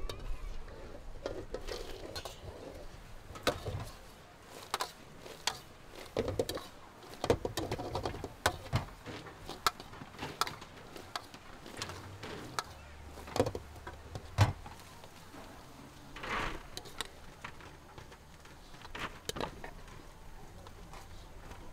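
Irregular clicks and knocks of cooking utensils working at a food stall, over faint background chatter.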